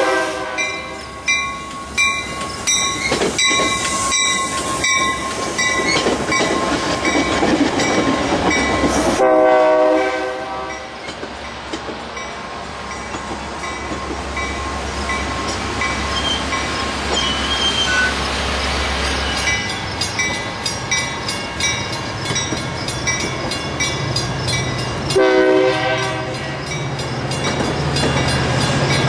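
Metra commuter train passing through the station, sounding its horn in three short blasts: at the start, about 9 seconds in and about 25 seconds in. Its wheels click over the rail joints in between, and a deep rumble builds over the last few seconds.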